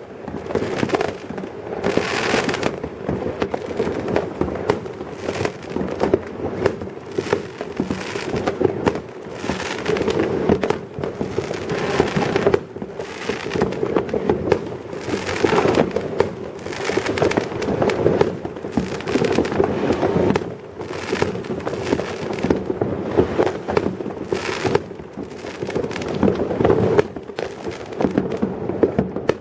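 Fireworks going off in large numbers: a continuous run of overlapping bangs and crackling.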